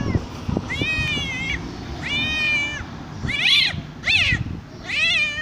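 A man imitating a cat by voice: a run of about five meows, each rising then falling in pitch.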